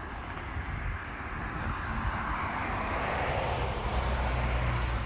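A passing vehicle: a rush of engine and road noise that swells gradually, with a deep rumble building near the end.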